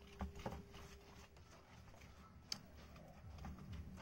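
Faint taps and knocks of young coconut halves being handled on a table, with a sharper click about two and a half seconds in.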